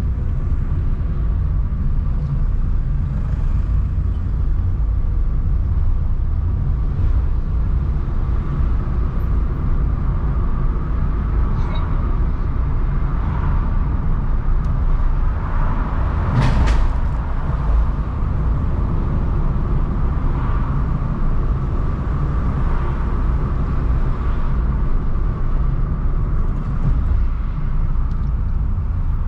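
Car driving, with a steady low rumble of engine and road noise and one sharp knock a little past halfway.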